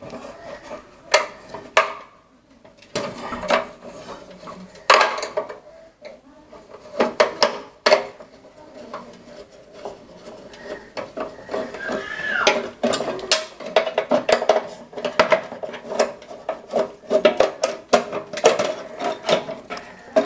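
Screwdriver working loose the mounting screws of a pump starter's contactor inside a sheet-metal box, with scattered metallic clicks, taps and scrapes of the tool and hardware as the contactor is freed.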